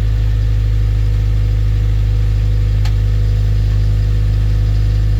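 Honda Civic (EK) engine idling steadily just after a hard cold start, warming up after sitting unused for a couple of weeks.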